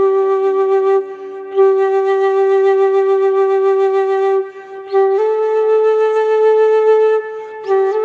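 Flute playing a slow melody of long held notes, stepping to a new pitch every few seconds, with short softer gaps between phrases.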